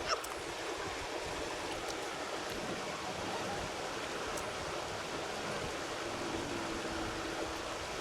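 Steady rush of flowing creek water, with one sharp click just after the start.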